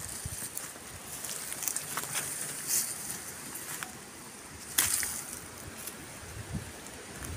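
Crackling and rustling of dry leaf litter, twigs and grass being walked through and pushed aside, with a sharper crack about five seconds in.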